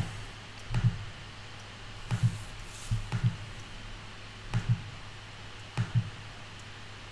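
Soft clicks at a computer desk, in five quick pairs about a second and a bit apart, each with a low thud, over a faint steady hum.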